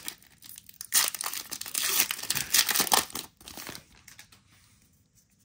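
Foil wrapper of a Pokémon TCG booster pack crinkling and tearing open, loudest for a couple of seconds about a second in, then fading to faint rustling as the cards come out.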